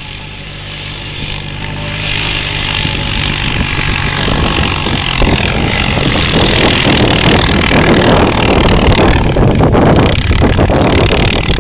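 Four-wheeler (ATV) engines running, growing steadily louder over the first five seconds into a loud, rough engine noise that holds to the end.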